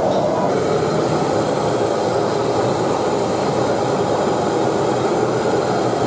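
A steady rushing noise from commercial gas wok burners running under the woks. A higher hiss joins about half a second in.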